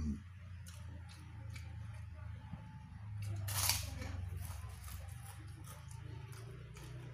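Close-miked eating by hand: chewing and small wet mouth clicks over a low hum, with a knock at the start and a short noisy burst about three and a half seconds in as a handful of rice is pushed into the mouth.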